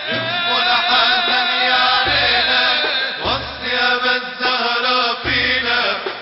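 Live Arabic Sufi devotional song (inshad): a wavering, melismatic melody over deep beats that recur every second or two.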